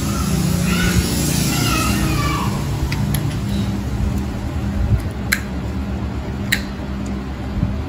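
Steel nail nippers snipping through a thick toenail: a few sharp clicks from about three seconds in, the clearest two near five and six and a half seconds. They sit over a steady low hum.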